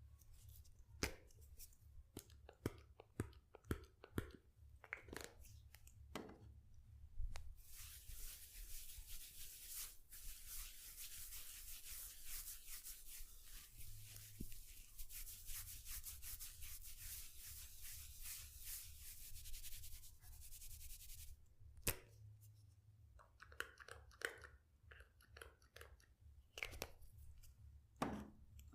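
Hands massaging a head close to the microphone: scattered taps and short scratchy strokes through the hair, then about 13 s of fast, continuous scratchy rubbing of the scalp and hair, then a few more strokes and taps.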